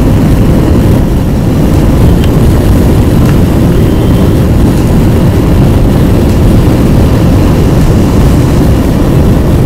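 Motorcycle under way, heard from the pillion seat: steady wind buffeting on the microphone over engine and road noise.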